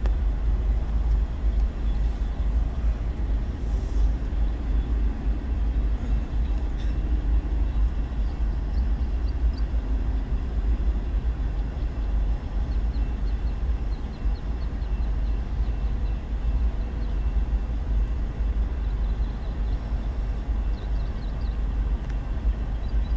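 Tank cars of a Union Pacific freight train rolling past in a steady low rumble, heard from inside a car, with a few faint high clicks now and then.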